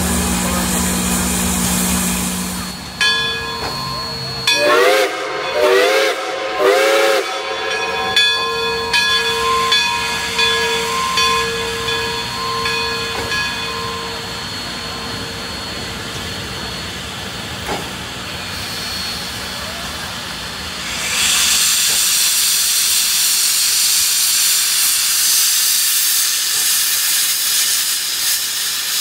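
A steam locomotive's whistle blows several short blasts, each sliding up in pitch as it starts, then one long blast that wavers and fades. Near the end, steam hisses loudly and steadily from around the locomotive's cylinders. A steady low hum comes first.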